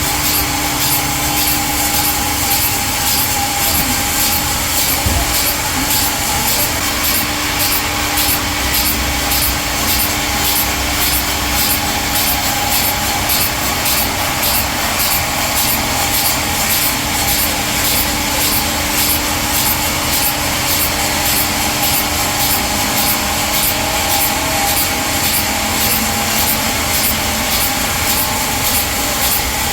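Sawmill saw cutting through a walnut log: a loud, steady sawing noise over a constant machine hum, with no break.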